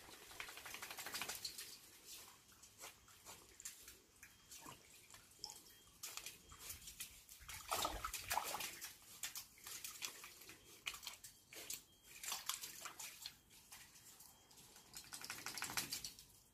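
Water splashing and dripping in a shallow paddling pool as a Jack Russell terrier wades through it: a fairly quiet run of irregular small splashes.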